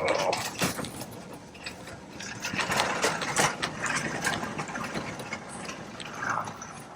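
Wheeled store bins rattling and clattering as they are rolled across the floor, a continuous run of small knocks and clicks.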